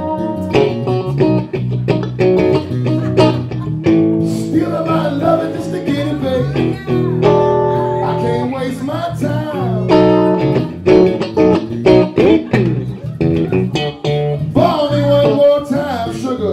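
Electric guitar and electric bass playing blues rock live, the guitar taking a lead line with bent notes over a steady bass part.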